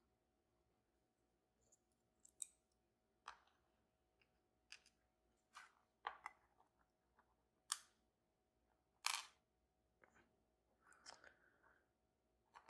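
Faint, irregular small clicks and taps of metal lock parts and tools being handled while a Banham M2002 lock is taken apart, about ten in all with gaps of a second or more.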